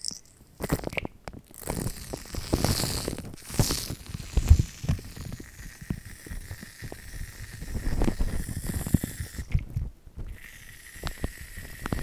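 Aerosol can spraying thick foam in uneven spurts: a hiss with dense crackling and small pops as the foam piles up on plastic wrap.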